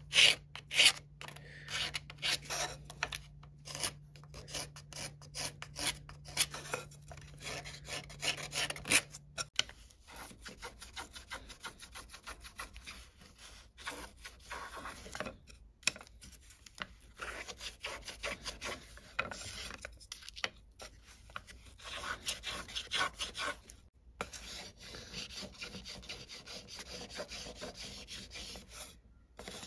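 A chisel and a small block plane shaving the rim of a bent wooden kayak cockpit hoop: a long run of quick, repeated scraping strokes with short pauses between bursts.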